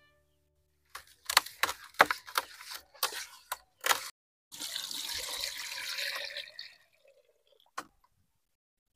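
Whole fish being rubbed and washed by hand in water in a clay pot. First comes a quick run of splashes and wet slaps, then a longer swish of sloshing water, and one last small splash near the end.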